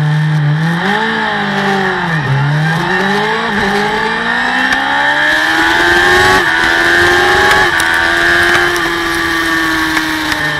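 Racing superbike engine accelerating hard off the start, its pitch climbing and dropping sharply at each of several upshifts, then holding a high, steady note. Wind rushes over the bike-mounted camera.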